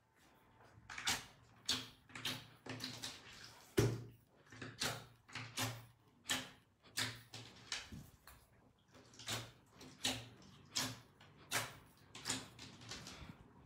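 Fingertips pressing into and lifting off a sheet of glossy blue slime. It makes a string of short sticky sounds, about two a second.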